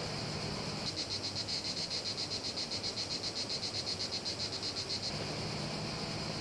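A small creature's rapid, high-pitched trill, about ten even pulses a second, starts about a second in and stops about five seconds in, over a steady high hiss of outdoor wildlife.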